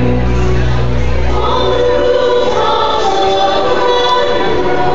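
Fireworks show soundtrack: loud choral music, a choir singing over accompaniment, heard as sung and held notes. A deep low rumble lies under it for about the first two seconds.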